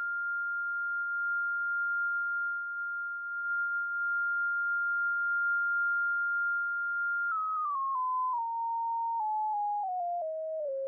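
A pure sine tone from a software-defined radio's DSB demodulator, held steady at a high pitch. About seven seconds in, as the tuning is moved, it steps down in pitch in about ten small jumps, each with a faint click, and ends on a lower steady tone.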